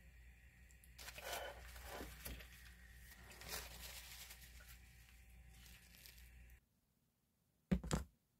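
Leafy greens being scraped and slid out of a pan onto a ceramic plate: rustling and scraping over a low hum, which stops abruptly. A short knock of a dish being set down comes near the end.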